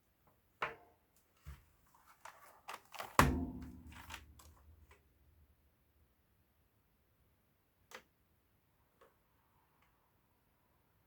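Handling sounds of a boxed mechanical keyboard being unpacked: irregular clicks and knocks, the loudest a thud with a short ring about three seconds in, then two lone clicks later.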